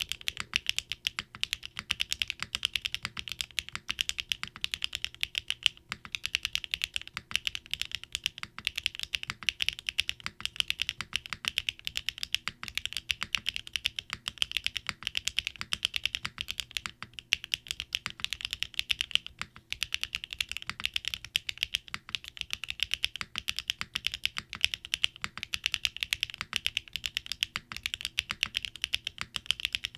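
Steady, fast typing on a NEO80 mechanical keyboard built with an anodized case, a POM plate, O-ring mount and no foam, with SW x HMX Garnet switches and PBTfans Resonance keycaps. It is a dense stream of crisp keystroke clicks, broken by a couple of very short pauses.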